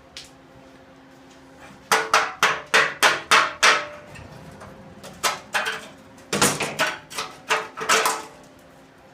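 Hammer blows on a steel tractor wheel, knocking out a rust-eaten section: a quick run of about eight ringing metal strikes, about four a second, then a pause, two more, and a second run of about six.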